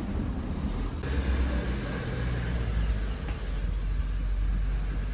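Motor vehicle running with road noise, a steady low rumble.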